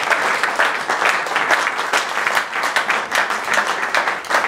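Audience applauding, a steady patter of many hands clapping, at the end of a reading.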